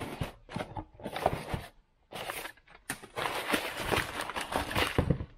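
Crumpled brown kraft packing paper rustling and crinkling as it is pulled out of a cardboard box, in irregular bursts with short pauses about two and three seconds in.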